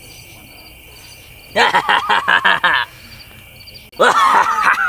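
Crickets chirping, about three chirps a second, over a steady insect trill. A person's voice cuts in loudly twice, about a second and a half in and again near the end, with short rhythmic bursts like laughter.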